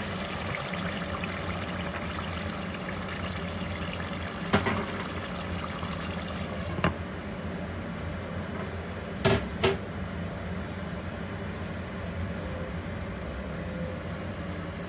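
Water poured into a pot of potato-and-pea curry on the stove, a steady splashing pour for several seconds. A few sharp knocks break through, the loudest a quick pair about nine seconds in.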